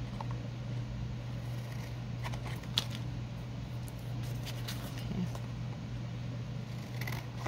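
Scissors trimming a thin, old book page: a few scattered sharp snips, the clearest about three seconds in, over a steady low hum.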